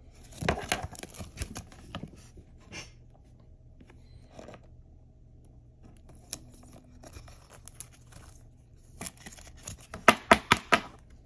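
Thin plastic penny sleeve and rigid plastic toploader being handled as a trading card is slid into them: soft rustling and scraping, with a quick run of about five sharp clicks near the end.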